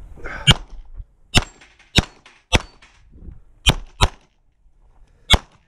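Seven 9mm shots from a Glock 17 MOS pistol, fired at irregular intervals. Most are about half a second to a second apart, with a quick double near four seconds in, as the shooter works through targets in a USPSA stage.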